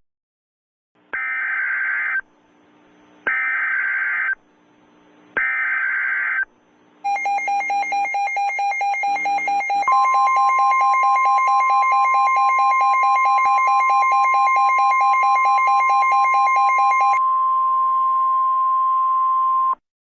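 Emergency Alert System-style alert tones. Three short bursts of buzzing data tone, each about a second long with a pause between, like an EAS header. Then a loud electronic alert tone pulses rapidly, about six times a second, for about three seconds, holds steady as a two-tone alarm, and ends on a single tone near the end.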